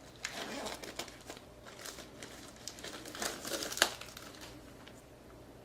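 Packaging of a Blu-ray box set being opened by hand: irregular crinkling and crackling rustles for about four seconds, with the sharpest crackle near the end.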